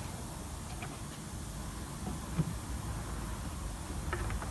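Steady low background rumble with a few faint clicks and a light knock about two and a half seconds in.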